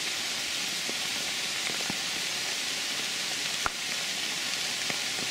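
Heavy rain pouring down, a steady hiss with scattered drops ticking close by and one sharper tap a little past halfway.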